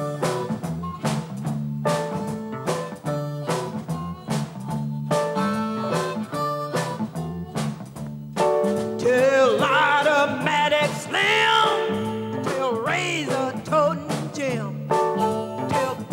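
Chicago blues band playing a repeating riff on electric guitar and bass over steady drums. A woman's singing voice comes in about halfway through and carries on for several seconds.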